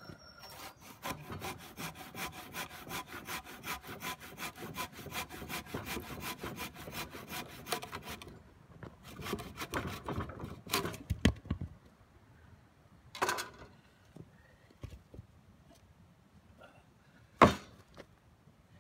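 Handsaw cutting through a pressure-treated lumber board in fast, even strokes, then a few slower strokes as the cut finishes. Afterwards a few sharp wooden knocks as the board is handled, the loudest near the end when it is set down on a wooden pallet.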